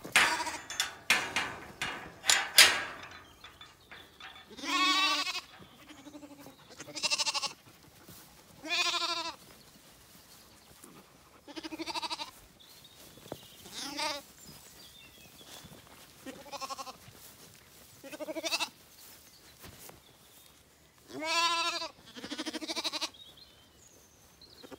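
Zwartbles lambs bleating repeatedly as they follow close by, about nine wavering bleats spaced two to three seconds apart. A burst of loud rustling and knocks comes in the first three seconds.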